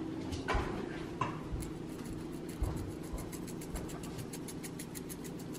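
Glass shaker of crushed red pepper flakes shaken over a pizza: a run of faint, quick rattling ticks, about five a second, starting about a second and a half in and stopping near the end. A low steady hum runs underneath.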